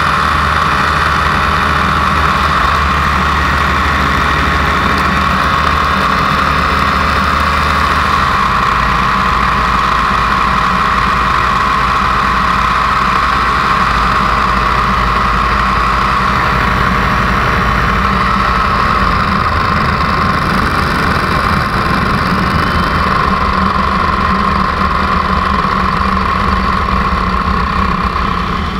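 Paramotor engine running steadily in flight, a constant drone that eases off slightly near the end.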